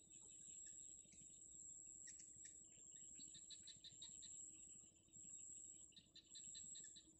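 Faint outdoor ambience: a steady high-pitched insect drone, with a bird's quick chirps in two short runs of about seven notes a second, one around the middle and one near the end.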